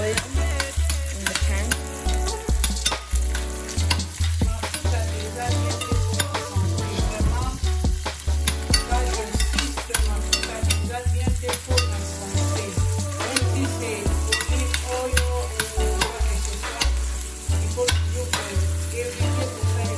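Onions frying in oil in a stainless steel pan, sizzling, while a metal spoon stirs them with frequent light scrapes and clicks against the pan.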